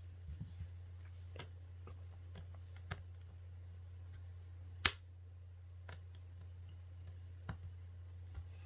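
Scattered light clicks and taps of a tool prying at the casing of a Samsung Galaxy Tab A 10.1 tablet, with one sharper click about five seconds in, over a steady low hum.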